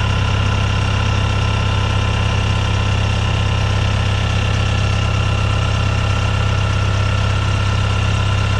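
Heavy-equipment engine running steadily at idle, with a steady high whine over the low engine note.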